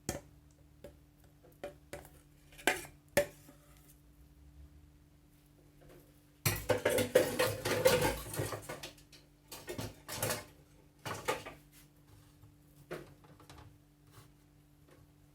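Spoon and glassware clinking and scraping as a cooked lemon dessert is portioned into glasses. Scattered single clinks, with a busier stretch of clatter lasting a couple of seconds in the middle.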